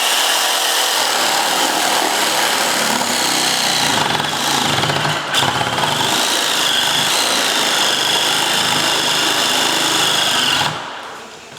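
An electric power tool or motor running steadily for about ten seconds with a high whine that wavers slightly, then cutting off abruptly near the end.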